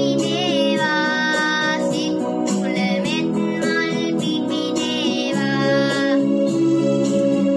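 A boy singing a Sinhala Buddhist devotional song (bakthi gee) over a steady instrumental backing track, his voice wavering with vibrato on held notes.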